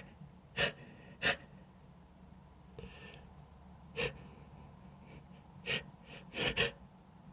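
A man's short, sharp intakes of breath, about seven in irregular groups: the gasping build-up to a sneeze that has not yet come.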